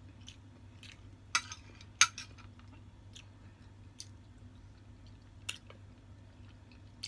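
Close-miked eating: chewing of eggplant omelette and beef tapa, with a few sharp clicks, the loudest about two seconds in, over a steady low hum.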